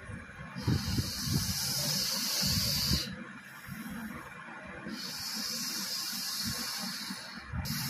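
A person hissing in long drawn-out breaths: two hisses of about two and a half seconds each, the second starting about halfway through, with uneven low breathy noise beneath.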